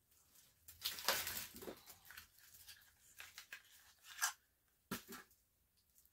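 Packaging being rustled and torn open by hand, a rustling stretch about a second in, followed by a few short clicks and knocks as items are handled.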